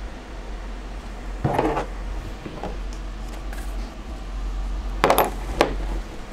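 Small metal camping gear handled on a tabletop: a knock about a second and a half in, then two sharp metallic clinks half a second apart about five seconds in.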